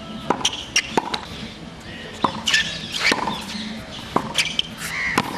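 Tennis ball on a hard court: a run of sharp, irregular hits of the ball on racket strings and bounces on the court, with short squeaks of tennis shoes on the court surface.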